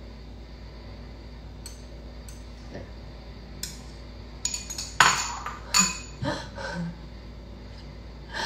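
Spoon clinking and scraping against a small bowl: a few faint clicks at first, then a cluster of sharper clinks about halfway through, the loudest near the middle.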